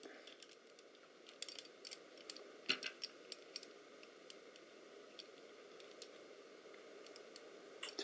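Faint clicks and light metallic clinks of a small metal-and-plastic anti-theft locking mechanism being handled and worked in the fingers, most of them in a cluster in the first few seconds, then a few scattered ones.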